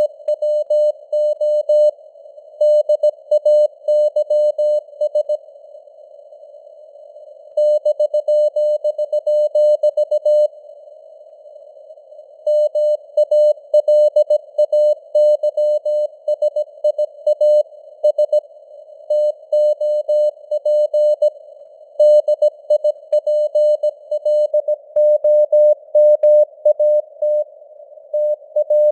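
Morse code (CW) sent at 17 words per minute: a single steady beep keyed on and off in dots and dashes, over a narrow band of simulated radio receiver hiss. The keying pauses twice for about two seconds, in the first half.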